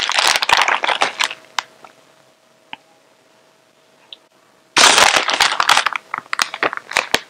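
Shredded cheese being sprinkled by hand onto sauce-covered enchiladas in a baking dish: crackly rustling and pattering in the first second, then again from about five seconds in, with a quiet gap between.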